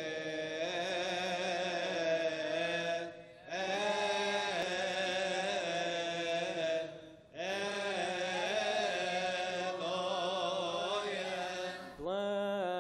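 Coptic Orthodox liturgical chant by a male voice: long, drawn-out melismatic phrases with short breaks for breath about three and seven seconds in and again near the end.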